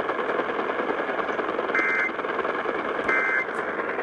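Emergency Alert System end-of-message (EOM) data bursts: two short, buzzy two-tone digital bursts about a second apart, over steady radio static. They are the encoder's closing code that ends the test alert.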